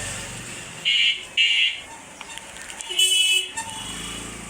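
Three short, high-pitched horn toots.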